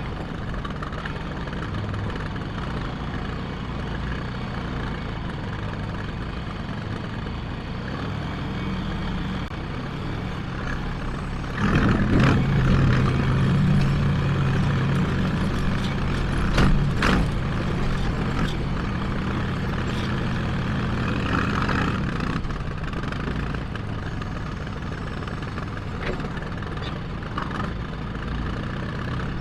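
John Deere 310A backhoe engine running. About a third of the way in it rises to a louder, heavier note for roughly ten seconds, with a few knocks, then settles back to a steady run.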